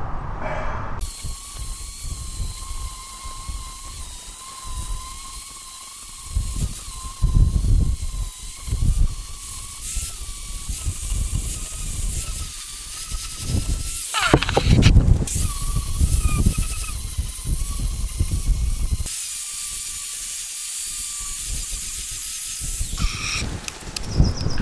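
Angle grinder running and grinding the steel of a railroad-track anvil: a steady high whine over a hiss, its pitch wavering slightly as the disc is pressed on the rail. A few louder low thumps come through, the loudest around the middle.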